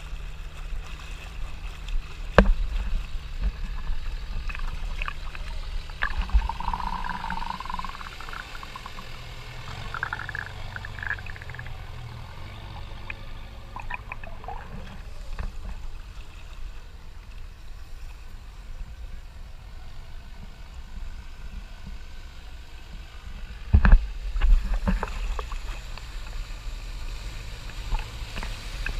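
Jeep engine running as it wades through flood water, its bow wave surging and splashing. The rush of water is loudest about five seconds before the end, as it comes close.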